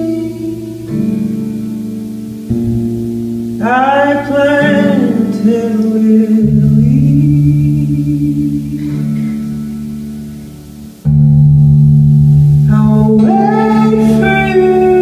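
Solo acoustic guitar playing a slow instrumental passage, its chords strummed and left to ring, with a strong strum about eleven seconds in. Brief wordless singing comes in twice over the guitar.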